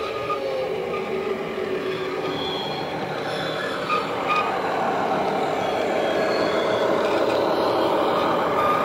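Sound decoder in a Dapol Class 21 model diesel locomotive playing the engine of a diesel-electric loco through its small EM1 speaker, along with the model's wheels running on the track. The sound is a recording of a German diesel-electric locomotive with the same MAN engine as the Class 21. It grows louder in the second half as the model approaches and passes.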